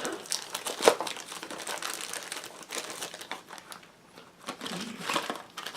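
Packaging crinkling and rustling as it is handled and unwrapped, with scattered small clicks and taps; it goes quieter for a moment past the middle.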